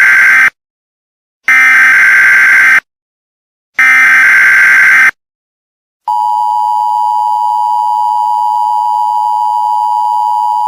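Emergency Alert System SAME header: the end of one burst of buzzy digital data tones, then two more identical bursts about a second apart. About six seconds in, the EAS two-tone attention signal begins, a loud steady dual tone near 900 Hz that holds without change.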